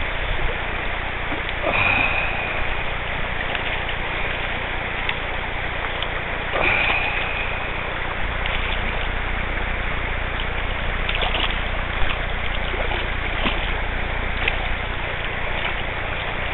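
Steady rush of shallow river water around a wading angler, with low wind rumble on the microphone. A hooked trout splashes at the surface midway, and a few brief sharp knocks from handling rod and line come through, the loudest about twelve seconds in.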